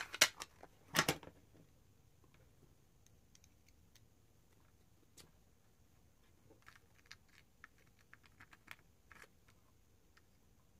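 Small clicks and taps of nail drill bits being handled and one being pushed into the metal handpiece of an electric nail drill, with the motor off. A few sharper clicks come in the first second or so, then scattered soft ticks.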